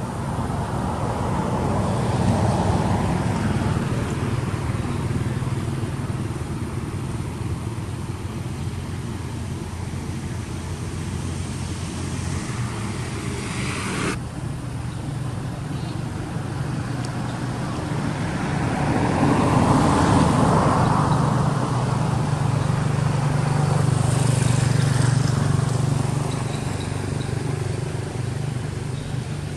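Passing road traffic: vehicles swelling and fading by, loudest about two seconds in and again around twenty seconds in, over a steady low engine hum.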